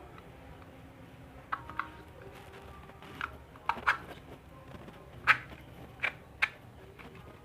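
About eight light clicks and taps at irregular intervals, the loudest a little past five seconds in, over a faint steady background hum: small hard parts being handled on a workbench.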